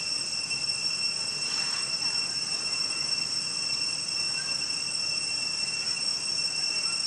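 Insects droning steadily in several high, unchanging tones.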